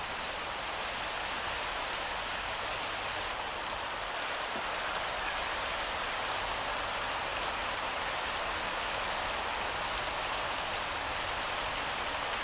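Steady rain falling, an even unbroken hiss of rain on stone paving.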